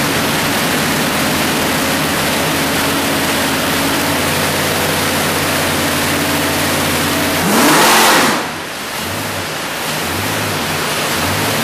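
427 cubic-inch Windsor-based small-block Ford V8 running steadily on an engine dyno under load for an acceleration-from-cruise test. About seven and a half seconds in it revs up sharply to its loudest, then drops back to a lower, pulsing idle.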